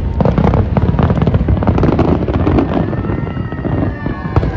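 Fireworks bursting in quick succession, a dense barrage of loud bangs and crackles, with whistling glides rising and falling in the second half.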